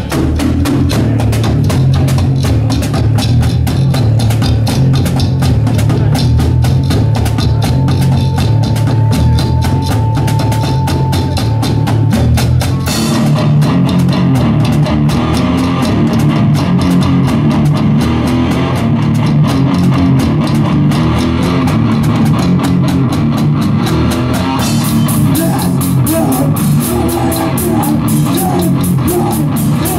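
Death metal band playing live and loud: distorted guitars and bass over fast, dense drumming. The riff changes about 13 seconds in and again near 25 seconds.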